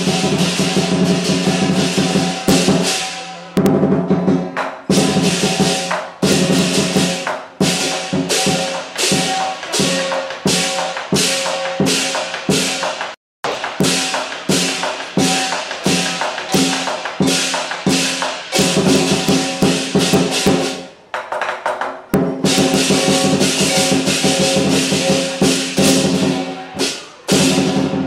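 Southern Chinese lion dance percussion: a lion drum beaten with clashing cymbals and a gong in a fast, driving rhythm. A sparser passage of separate accented strikes comes near the middle, and the sound cuts out for an instant about halfway.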